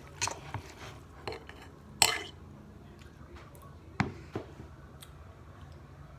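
Close-up eating sounds of spicy beef noodles: wet mouth smacks and a utensil clicking against the bowl. The loudest are a short noisy burst about two seconds in and a sharp click about four seconds in.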